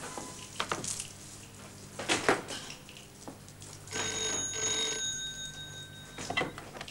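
A couple of sharp knocks and footsteps. About four seconds in, a telephone rings once in a short double burst.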